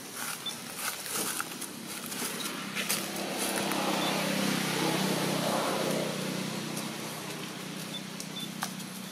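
A motor engine running steadily, swelling to its loudest about halfway through and then fading, with scattered light clicks and rustles.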